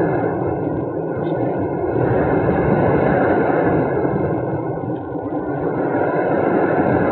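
In-flight noise of a Radian RC sailplane recorded by a cheap keychain camera taped to the airframe: a steady rushing of air over the plane and microphone, dipping briefly about five seconds in.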